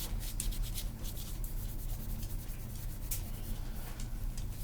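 Never Dull wadding polish being scrubbed on a tarnished brass Zippo lighter case: quick, irregular scratchy rubbing strokes, over a steady low hum.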